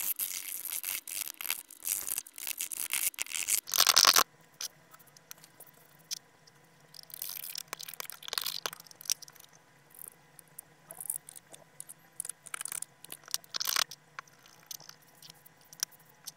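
Wooden toothpick scraping crusted grime off an old Greek 50 drachma coin, in rapid dense scratches for about the first four seconds, then in short scattered scrapes.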